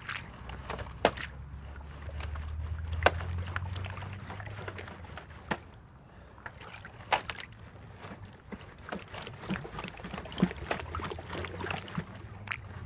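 Thin sheet ice on a puddle cracking and crunching under a boot: a string of sharp snaps at irregular intervals, over a low steady rumble.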